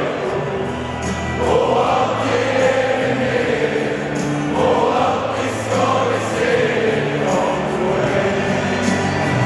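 Large crowd of football supporters singing a chant together in the stands, many voices in unison in repeated phrases.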